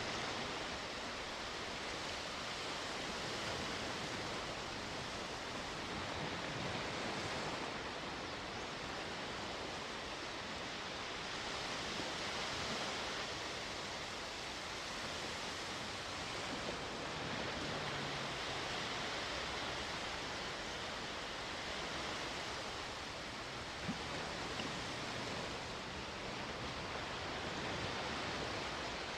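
Sea waves washing onto the shore: a steady hiss of surf that swells and eases every few seconds. A single short tick comes late on.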